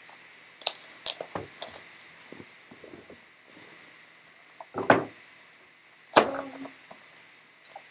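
Trading card packs and wrappers being handled on a table: a scatter of crinkles, taps and clicks, with two louder knocks about five and six seconds in.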